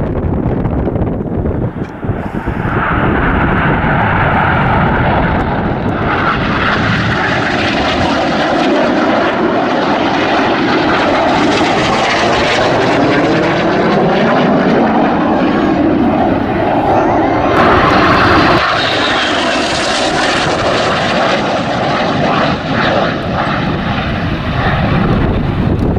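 Red Arrows BAE Systems Hawk jets, each powered by a single Rolls-Royce Turbomeca Adour turbofan, passing in display flight: loud jet noise that swells about two seconds in, with a sweeping, shifting tone through the middle as they go by, and eases a little near the end.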